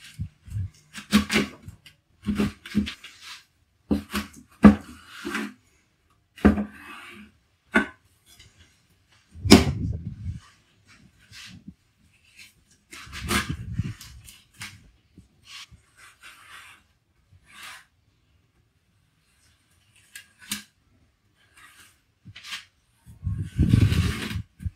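A large, wide-bladed knife cutting through raw tuna flesh along the backbone: irregular short slicing scrapes and taps of the blade, with a few heavier thumps of the fish and knife on a wooden cutting board, the longest run of these near the end.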